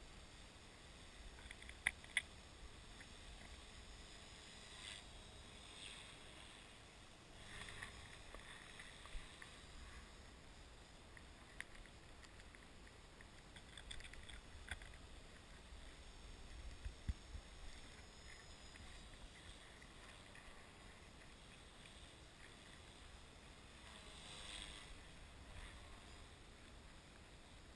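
Near silence: a faint low rumble, with a couple of sharp clicks about two seconds in, a few more scattered clicks and several soft swishes.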